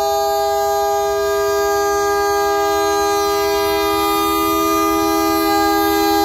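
Diesel locomotive's multi-chime air horn held in one long, steady chord while the train passes close by, over the low rumble of the train. It is the warning for the road crossing.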